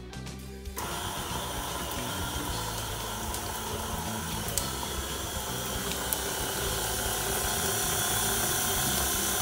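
KitchenAid Artisan tilt-head stand mixer running, its flat beater beating soft butter in the stainless steel bowl: a steady motor whir that starts abruptly about a second in and grows slightly louder toward the end.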